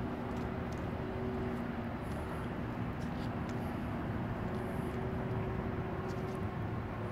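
Steady urban background rumble with a faint, steady hum running through it and a few faint ticks.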